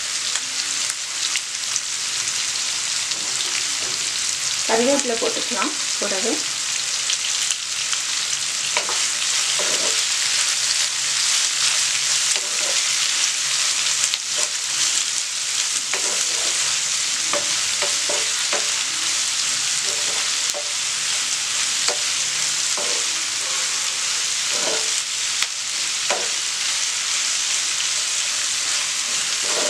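Sliced onions and dried red chillies sizzling steadily in hot oil in a non-stick pan, stirred with a wooden spatula that scrapes and knocks against the pan now and then.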